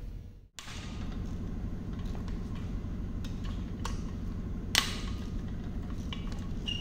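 Hand ratchet loosening a connecting-rod cap nut on a Toyota 2AR-FE engine block: scattered metal clicks and taps, with one sharp metallic clank about five seconds in, over a steady low hum.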